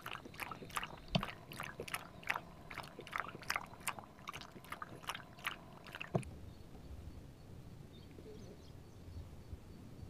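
A dog lapping water from a bowl in a quick, even rhythm of about three or four laps a second, stopping about six seconds in.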